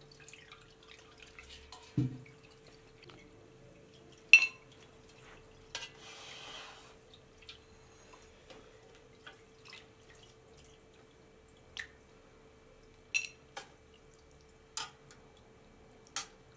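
Broth dripping from an upturned aluminium pot into a steel colander, with scattered clinks and taps of metal pots and a plate being handled over a faint steady hum. A dull thump comes about two seconds in and the sharpest clink a couple of seconds later.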